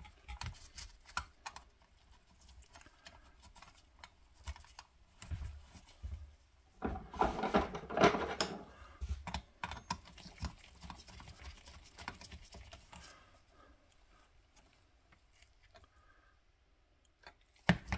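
Scattered light clicks and knocks from a vintage Philco radio chassis and its parts being handled, with a longer, louder stretch of handling noise about seven to nine seconds in.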